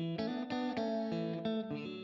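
Background music: a guitar playing quick plucked notes and chords.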